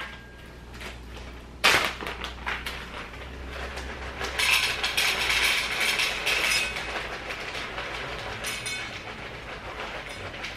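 A sharp knock, then dry dog kibble poured into a container: a dense rattling pour, heaviest for about two seconds in the middle and trailing off into scattered ticks.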